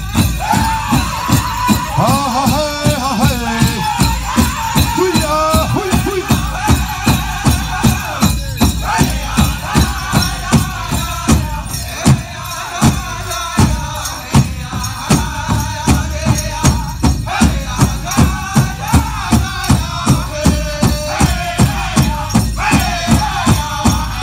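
Powwow drum group singing in a high, wavering style over a big drum struck in a steady, fast beat, a dance song.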